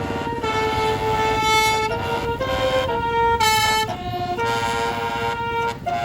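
A truck's multi-note telolet air horn playing a melody, each note held about half a second, over a low engine rumble.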